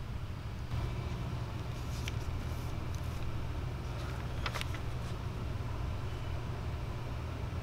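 Steady low room hum, with a few light taps or clicks about two seconds in and again around four and a half seconds.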